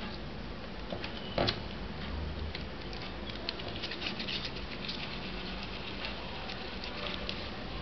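Silly Putty being pulled and kneaded in the hands, giving a run of many small sticky clicks and crackles, with one louder knock about a second and a half in.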